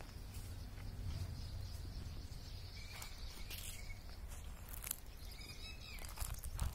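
Outdoor ambience dominated by a steady low rumble of wind on the microphone, with a few faint short bird chirps about halfway through and again near the end, and a few sharp clicks near the end.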